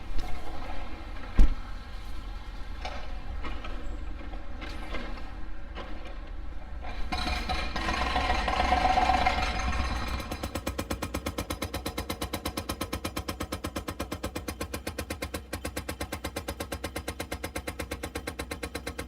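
Excavator-mounted hydraulic breaker hammering concrete, starting about halfway through as a rapid, steady run of several blows a second over the excavator's engine. A single sharp thump comes early, before the hammering starts.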